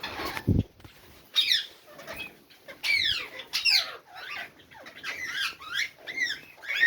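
Pet birds calling: a string of harsh, downward-sweeping squawks, several in quick succession, with a short low thump about half a second in.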